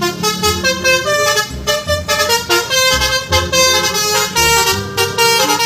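Telolet-style musical bus horn playing a quick melody of many short, bright notes, over a regular low beat.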